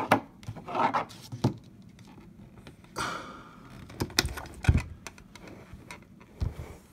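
Handling noise from a Smith & Wesson Model 15-3 revolver turned over in the hands: a few scattered light clicks and knocks, the strongest about two-thirds of the way through, with a short rub about three seconds in.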